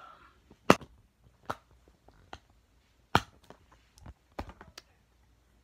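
Plastic clicks and snaps of a Blu-ray case as the disc is pressed off the centre hub and lifted out, about seven sharp clicks, the loudest about a second in and again near the middle.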